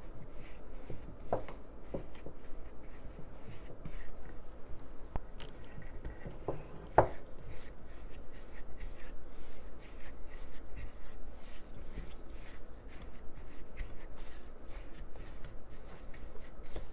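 Silicone spatula scraping and stirring a stiff, dough-like bath truffle mixture in a ceramic bowl, a steady run of quick strokes. A few sharp knocks, the loudest about seven seconds in.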